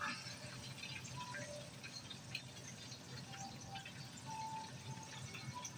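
Faint stovetop cooking: a low, even sizzle and bubbling, with scattered small ticks and a few brief faint tones, as the catfish fries in oil and a pot of tea heats toward the boil.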